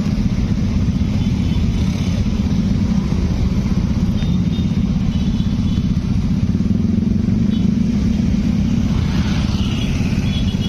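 A motor vehicle engine, like a motorcycle's, running steadily and loudly close by, with no rise and fall.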